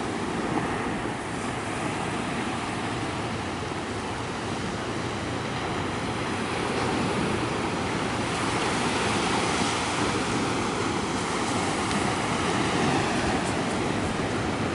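Steady wash of ocean surf on a beach, with some wind.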